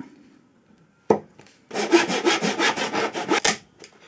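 Hand saw cutting into wood in quick, even strokes for about two seconds, after a single sharp knock about a second in.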